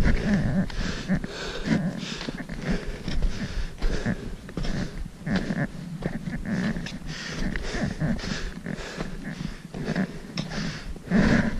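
Footsteps crunching in snow at a steady walking pace, with the hiker's heavy breathing close to the microphone.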